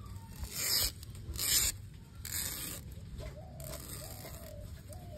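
A small metal blade scraped along coconut palm leaflets, stripping the green leaf off the midribs: three scraping strokes in the first two and a half seconds, then softer scraping.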